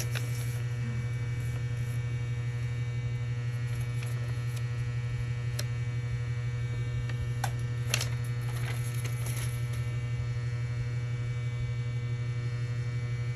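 Steady low electrical hum, with a few faint clicks around the middle.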